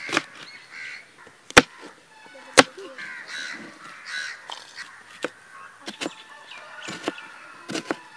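Kitchen knife chopping green chillies and then an onion on a plastic cutting board: irregular sharp knocks of the blade striking the board, two of them much louder about one and a half and two and a half seconds in.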